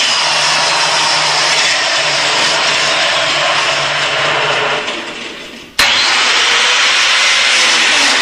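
Electric biscuit joiner (plate joiner) motor running at full speed with a steady high whine and a low hum under it. About five seconds in the sound fades away for about a second, then comes back suddenly at full level.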